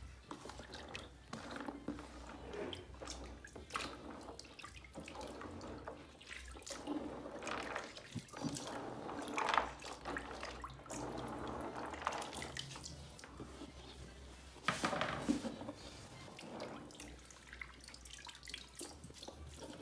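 Hands sloshing through a basin of water and açaí juice, rubbing the berries to loosen the pulp from the seeds, with irregular splashes and drips. A louder splash comes about halfway through, and another near three quarters.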